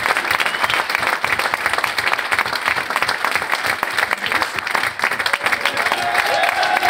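A roomful of people applauding, a dense steady clapping throughout, with one voice calling out briefly near the end.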